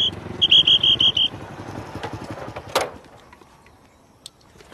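Traffic police whistle blown in a quick string of short, shrill blasts over a motorcycle engine running, which dies away over about three seconds. A brief whoosh comes just before the engine fades out.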